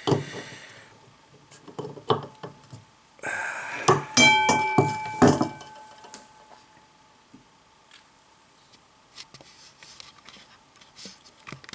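Small metal lamp parts clicking and clinking as they are handled and fitted by hand, with a few sharper metallic knocks about four to five seconds in, one leaving a brief ringing tone.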